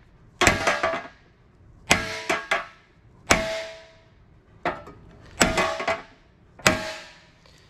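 Body hammer striking a creased Harley steel rear fender against a dolly held behind the panel: sharp metallic clangs with a short ring, in clusters of one to three blows about every second, as the crease is worked out hammer-on-dolly.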